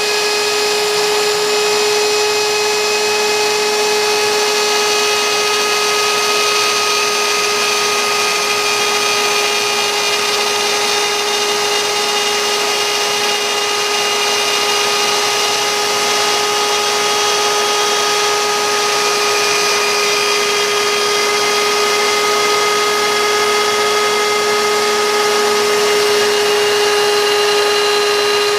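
CNC router spindle running at constant speed with a steady high whine as its bit cuts wood, over a continuous hiss of cutting noise.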